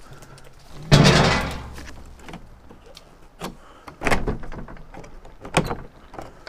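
Old weathered wooden shed door being pulled open: a loud scrape and bang about a second in, then a few more knocks and scrapes as it is worked open.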